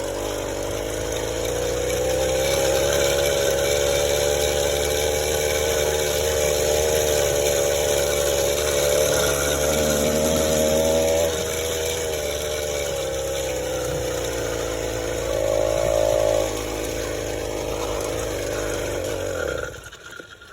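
Small motorized-bicycle engine running steadily, its speed easing up and down a little, then cutting off suddenly near the end. Its idle sits higher than the mechanic likes; he wants the cables and carburettor adjusted to tune it down.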